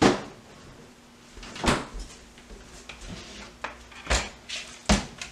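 Refrigerator door knocking shut, then a few sharp knocks of a mixing bowl and metal loaf pan handled on the counter and stovetop, four distinct knocks in all, the first the loudest.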